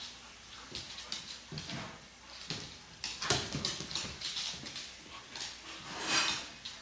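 Two dogs play-fighting: irregular scuffling and quick clicks of paws, with short noisy bursts, the loudest about three seconds in and again near the end.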